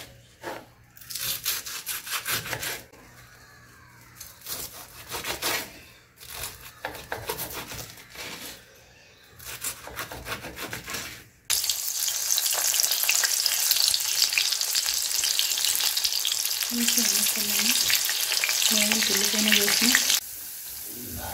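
A kitchen knife cutting crisp stuffed chilli fritters on a wooden cutting board, in short intermittent strokes. Then the cut mirchi bajji pieces deep-frying a second time in hot oil in a steel kadai, a loud steady sizzle that stops shortly before the end.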